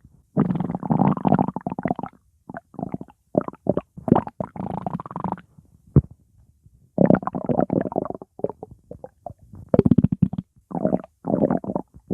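Stomach growling: gurgling rumbles coming in irregular bursts, with a pause of about a second and a half near the middle before the rumbling picks up again.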